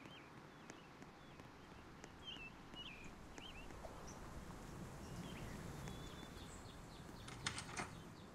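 Faint outdoor background with scattered short bird chirps. A quick cluster of sharp clicks or knocks near the end is the loudest sound.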